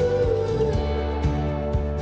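Background music: a song with guitar over a steady beat, about two beats a second, with a sustained melody line.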